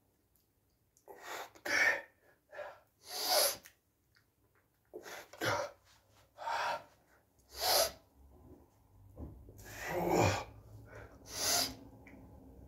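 A man's short, forceful puffs of breath through the mouth as he strains at each dumbbell lift, about nine at uneven intervals of roughly one to two seconds.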